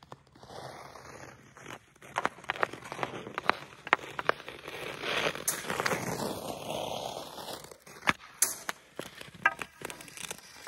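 Hockey skates scraping and carving over outdoor ice, with sharp clicks and taps of a hockey stick blade on the ice throughout. The scraping is heaviest in the middle stretch.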